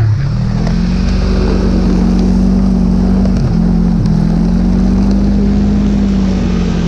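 Snowmobile engine running steadily at speed over snow, its pitch dipping briefly twice around the middle as the throttle eases and picks up again.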